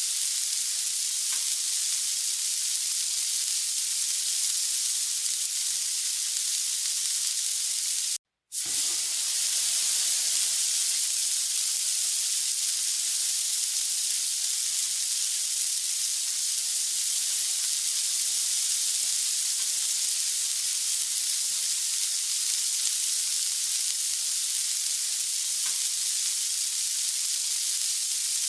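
Samgyeopsal (pork belly) sizzling steadily on a hot grill. The sound drops out completely for a moment about eight seconds in, then the sizzling resumes.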